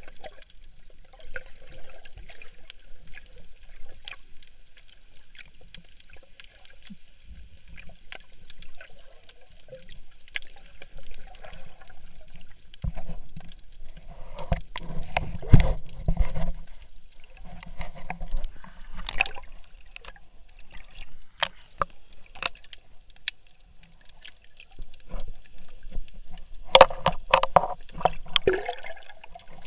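Water trickling and sloshing, with scattered sharp clicks and knocks and louder stretches about midway and near the end.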